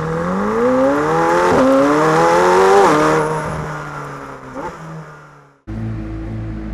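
McLaren Senna's twin-turbo V8 accelerating hard, its pitch climbing steeply with a break about one and a half seconds in and another near three seconds, then falling away as it eases off. About a second before the end the engine sound cuts off abruptly and steady low tones take over.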